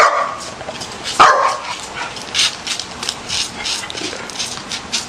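A dog barks twice, once at the start and again about a second in, followed by a run of quick scratchy scuffs.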